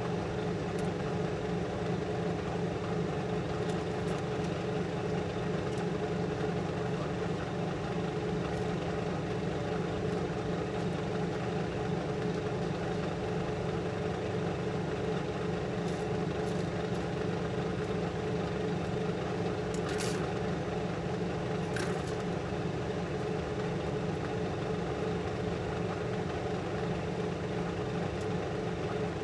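Steady hum of a clean-room laminar-flow bench's blower fan. Two faint clicks from tweezers on the opened hard drive come about two seconds apart, about two-thirds of the way through.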